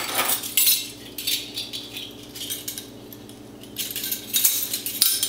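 A set of metal measuring spoons on a ring, clinking and jingling against each other as they are handled and sorted through. The light clinks come in scattered clusters, busiest in the last second and a half.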